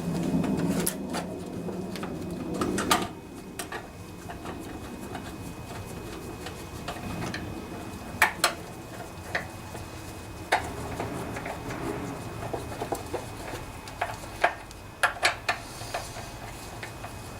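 Scattered clicks and clinks of hand tools and small metal parts being handled while a small engine's carburetor and fuel line are reassembled, with a busier stretch of handling noise in the first few seconds.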